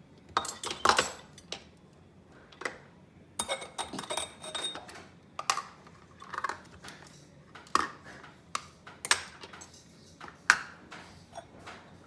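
Irregular clinks and knocks of a plastic bowl and the stainless-steel parts of a stovetop moka pot being handled by a capuchin monkey and bumped on a stone countertop, with the loudest knocks about a second in and near the end.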